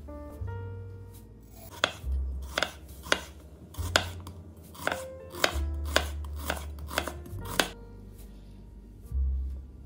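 A chef's knife slicing a halved onion on a bamboo cutting board: about ten sharp, irregularly spaced knocks of the blade against the board, starting about two seconds in.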